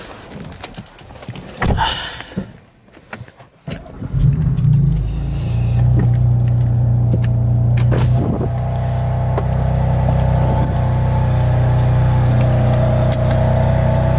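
A few thumps and clicks first. About four seconds in, a 2018 BMW M3 Competition's twin-turbo inline-six starts with a brief flare of revs, then settles into a steady idle, heard from the driver's seat.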